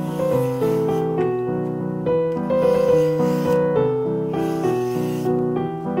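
Background piano music, a run of notes and chords.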